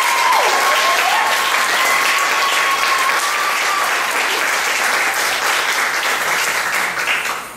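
Audience applauding, with a long, held cheer over the clapping in the first four seconds; the applause stops abruptly near the end.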